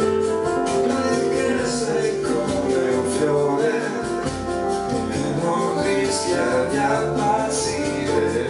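Instrumental keyboard passage: a piano-style keyboard and a synthesizer playing held chords under a moving melody, between sung lines of a slow Italian pop song.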